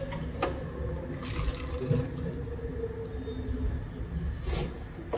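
Motorcycle being shaken by hand to check its rear suspension for play: a few soft knocks and a scrape over a low rumble.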